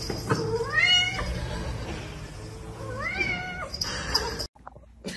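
A cat meowing twice: a short rising meow about a second in, then a longer meow that rises, holds and falls around three seconds in.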